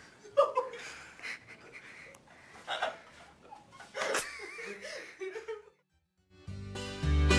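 A young man's short bursts of laughter and vocal noises, then a moment of silence before music starts near the end.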